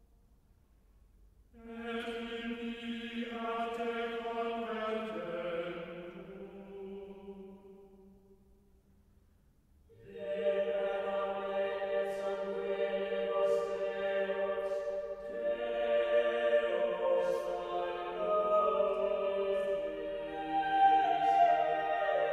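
Choral music: a choir singing slow, held chords in two phrases, the first starting about two seconds in and fading away, the second starting about ten seconds in and carrying on.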